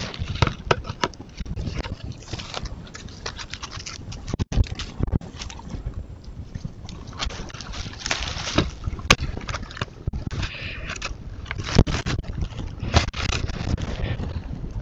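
Trail camera being handled by a jaguar at close range: repeated knocks, scrapes and rubbing of fur against the camera housing and microphone, irregular sharp clicks over a constant low rumble.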